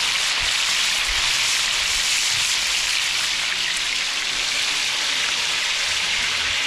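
Sierra fish fillets frying in oil in a cast-iron skillet: a steady, even sizzle.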